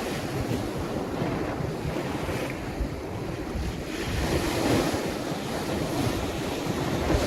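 Ocean waves breaking and washing up the shore in a steady rush, easing slightly about three seconds in and swelling again, with wind buffeting the microphone.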